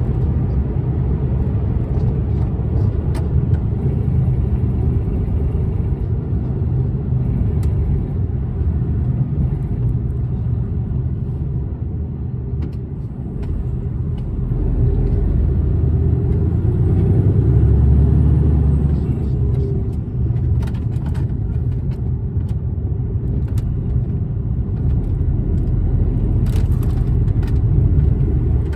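Inside a lorry cab: the HGV's diesel engine and tyre rumble while driving along the slip road. The rumble eases a little before the halfway point, then grows louder again as the lorry pulls away.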